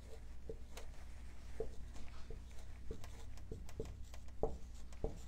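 Dry-erase marker writing on a whiteboard: a string of faint short taps and scratches, over a steady low room hum.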